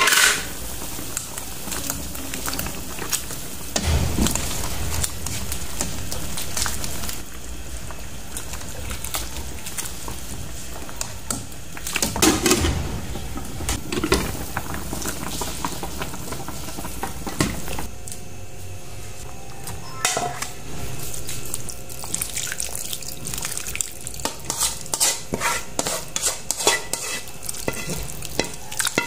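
Porcupine fish linarang stew bubbling at a boil in a metal wok, with the clatter of a pot lid and utensils a few times along the way. Near the end comes a quick run of clinks and scrapes as the stew is spooned into a glass bowl.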